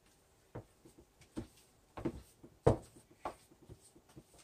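Spatula stirring seasoned flour in a plastic container, with irregular soft knocks and scrapes against the container's sides and one louder knock a little past halfway.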